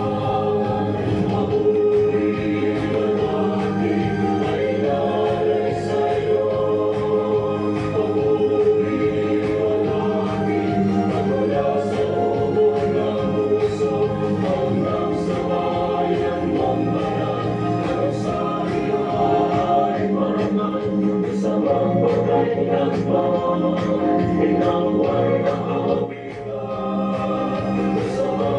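Background gospel music with a choir singing.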